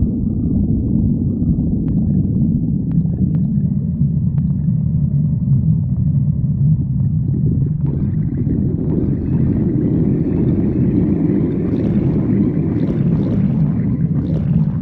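Badger's stomach growling: a continuous low rumble that turns brighter and fuller from about halfway through.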